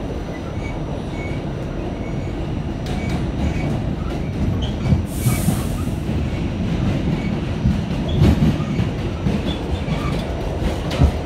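A New York City subway car on the A line running, heard from inside by the doors: a steady low rumble of the wheels on the track with scattered clicks and clacks, and a short burst of hiss about five seconds in.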